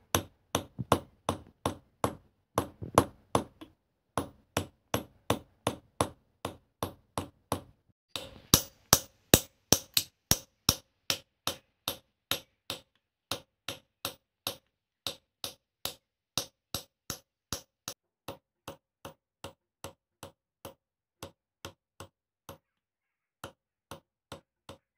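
Small hammer tapping a chasing punch along a copper vessel to engrave a dotted-line pattern: steady, sharp metallic taps, about two or three a second, loudest about a third of the way in and quieter toward the end.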